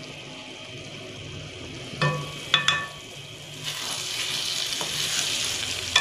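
A few sharp metal clinks against a cooking pan about two seconds in, then a steady sizzle of food frying in oil that grows a little louder toward the end.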